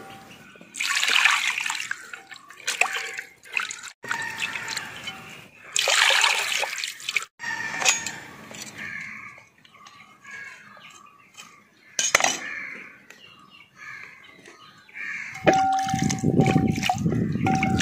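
Water splashing and sloshing in a metal basin in irregular bursts as a whole tuna is washed by hand. A louder, steadier run of water begins about two seconds before the end.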